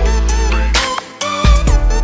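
Background music with heavy bass notes and a melodic lead line above them. The bass drops out briefly about a second in, then comes back.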